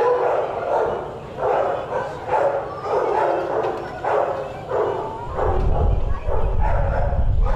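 Dogs barking in shelter kennels, one short bark after another, roughly one or two a second. A low rumble joins about five seconds in.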